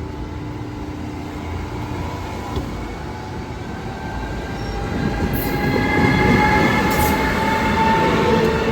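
Train approaching on the rails, a steady rumble with a high, slightly rising whine that grows louder about five seconds in, with a couple of sharp clicks.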